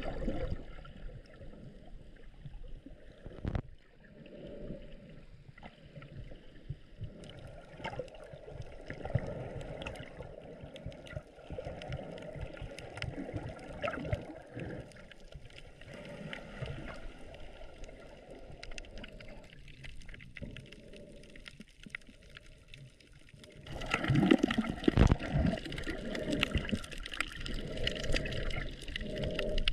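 Water sounds picked up by a snorkeller's camera underwater: muffled gurgling and sloshing dotted with small clicks and crackles, growing louder for the last several seconds.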